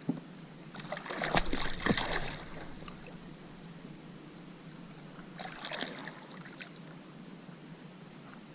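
Water splashing and dripping as a hooked redfish is lifted out beside a kayak, in two bursts: a louder one about a second in and a weaker one near the middle.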